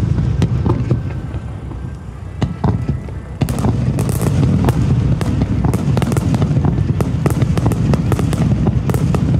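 Fireworks display: many aerial shells bursting in quick succession, a continuous low rumble of booms under many sharp pops and crackles. It eases off briefly about two seconds in, then a dense barrage resumes about three and a half seconds in.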